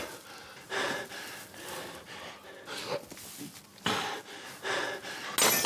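A man panting and gasping hard in loud breathy bursts, winded from a fistfight.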